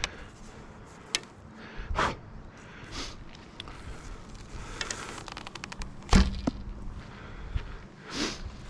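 A bow being shot: a sharp thump from the string's release about six seconds in is the loudest sound. Lighter knocks, clicks and rustles of handling the bow and arrows come before it.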